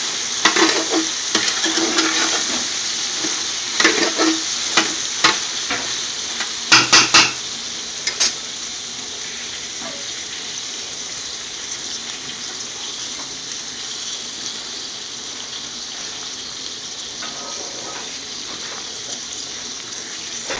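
Scotch bonnet chillies sizzling steadily in a metal pot. For the first several seconds a metal spoon stirs and knocks against the pot, the loudest a quick cluster of knocks about seven seconds in; after that only the sizzle goes on.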